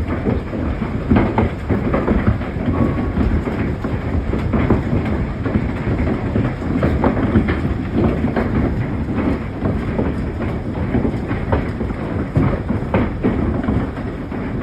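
Large hail, tennis-ball to baseball size, pounding down in a dense, continuous clatter of hard impacts over a steady storm roar.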